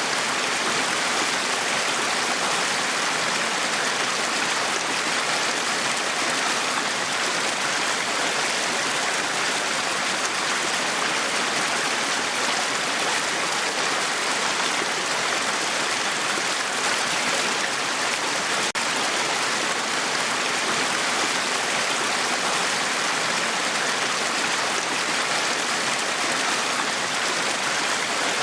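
Small brook babbling steadily over stones, a continuous even rush of running water.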